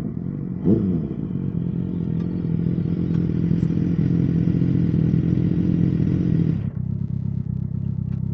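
Ducati ST4S 996 cc L-twin engine blipped once about a second in, then held steady at raised revs, dropping back to a lower idle near the end.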